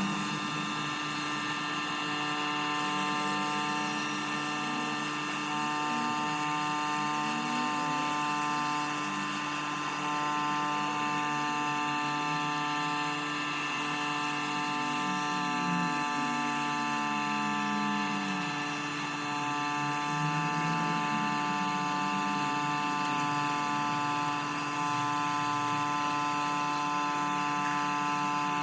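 A small motor running steadily with an even, unchanging whine made of several fixed tones.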